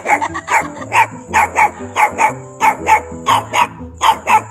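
A puppy barking in short, quick yaps, mostly in pairs about every half second, over background music with a steady beat.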